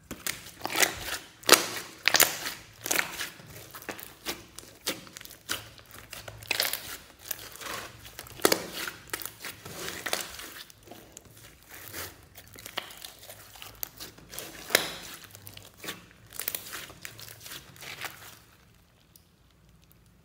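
Hands squeezing, pressing and stretching a large glossy slime studded with small foam beads: a dense run of sticky clicks, pops and crackles, with a few louder snaps among them. The handling stops about two seconds before the end.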